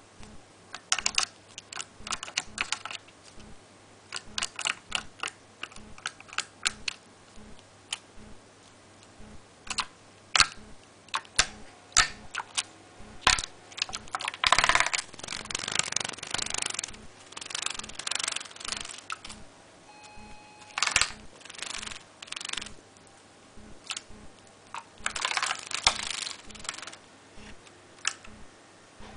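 Java sparrow bathing in a shallow plastic dish of water: short bouts of splashing and wing-flicking, with single sharp ticks and taps between them. The longest, busiest splashing comes about halfway through and again near the end.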